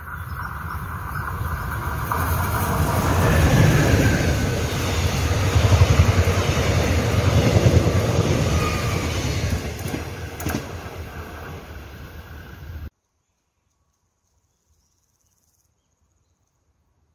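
Korail Mugunghwa-ho passenger train passing close by: the rumble of its coaches' wheels on the rails swells over the first few seconds, stays loud, then fades and cuts off abruptly about thirteen seconds in, leaving near silence.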